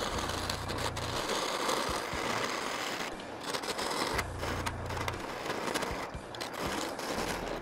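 VEVOR benchtop wood lathe spinning a wood blank while a hand-held turning tool cuts into it: a steady hissing scrape of steel on wood over the low hum of the lathe's motor, dipping briefly a few times as the tool eases off.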